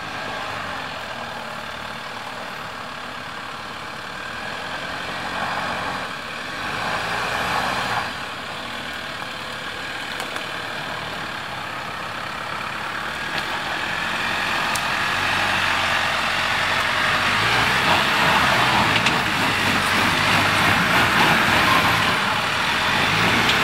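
Four-wheel-drive vehicle driving off-road, its engine running steadily, growing louder about halfway through and staying loud, with a few brief changes in engine pitch.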